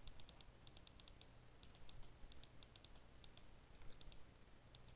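Faint computer mouse clicks in quick irregular runs, several a second, while a file list is scrolled. A low steady hum sits underneath.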